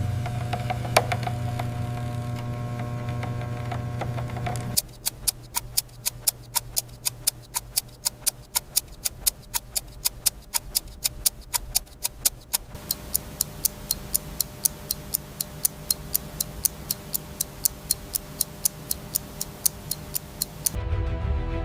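A mechanical watch ticking fast and evenly, several ticks a second, after a few seconds of steady hum; music comes in near the end.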